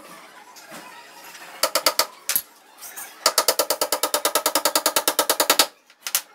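Claw hammer striking the top edge of a laminated particleboard cabinet: a few separate blows, then a fast run of light taps, about ten a second for over two seconds, and two more blows near the end.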